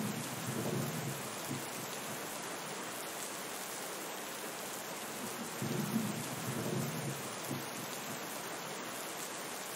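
Steady rain falling, with two low rolls of thunder: one at the start lasting about two seconds, and another about six seconds in.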